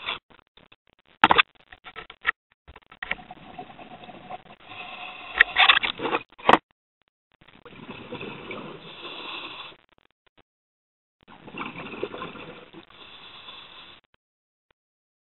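Scuba diver breathing through a regulator underwater: two long bursts of exhaled bubbles a few seconds apart in the second half. These follow a stretch of scattered clicks and knocks.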